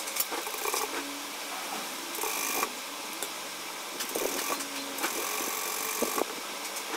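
Sewing machine stitching a seam through two layers of fabric, running steadily with louder, faster runs a little after two seconds and again from about four to six seconds.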